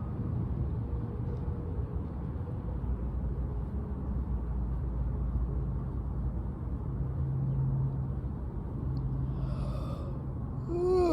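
Steady low outdoor rumble. Near the end comes a short voiced sigh.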